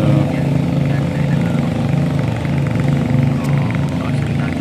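A small engine running steadily, with a regular low throb.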